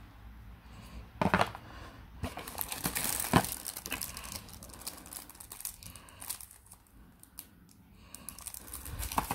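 Thin plastic packaging bag crinkling and rustling as it is handled, with sharp clicks about a second in and about three seconds in; quieter in the middle, livening again near the end.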